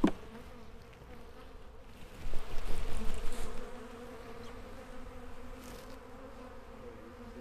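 Honeybees buzzing steadily around an open hive, a low even hum. About two seconds in, a louder noisy burst lasting a second or so rises over the hum.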